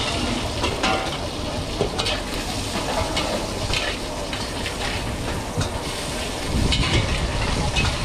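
Prawns sizzling in a hot wok as a metal ladle stirs them, with scattered scrapes and clinks of the ladle against the wok. A low rumble gets louder about two-thirds of the way through.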